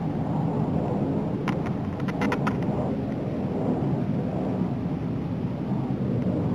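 Distant fighter jets giving a steady low rumble that grows a little louder near the end. A few faint clicks come about two seconds in.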